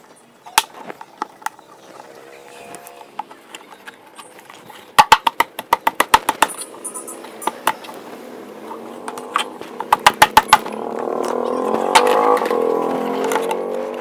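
Hard plastic table parts knocking and clacking as the legs are fitted together, with two quick runs of sharp knocks, one about five seconds in and one around nine to ten seconds. A humming sound builds up behind them near the end.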